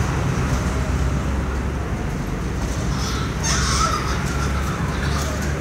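A puppy gives a short, high yelp about three and a half seconds in, over a steady low rumble of traffic.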